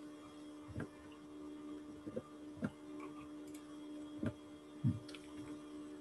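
Five or so faint, short clicks at uneven intervals over a steady low electrical hum.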